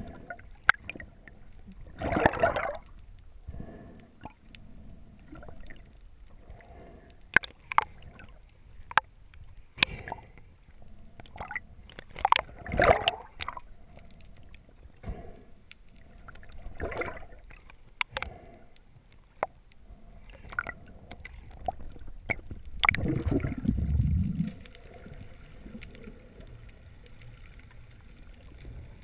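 Underwater water noise heard through an action camera's housing: a low murmur broken by scattered sharp clicks and several swelling gurgles of bubbles, the loudest and deepest one near the end.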